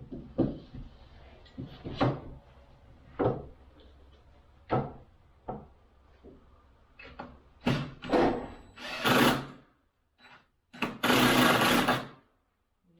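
A string of sharp knocks on wood, then a power drill/driver running in short bursts as screws are driven to fix a 2x4 to the ceiling, the longest burst about a second long near the end.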